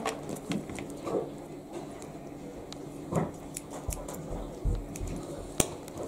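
Paper letters and envelopes being handled and opened on a table: scattered light rustles and sharp snipping clicks, with a few dull low bumps about two thirds of the way in.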